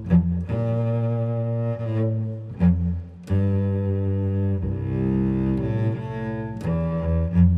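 Solo cello played with the bow: sustained low notes that change every second or two, with a few sharp, accented attacks.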